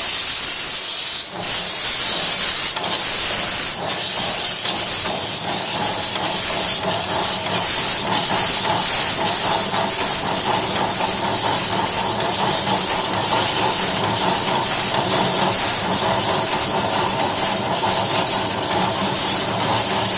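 Two-foot-gauge steam locomotive heard from the cab: a steady loud hiss of steam, with exhaust chuffs that come quicker as the engine gets under way.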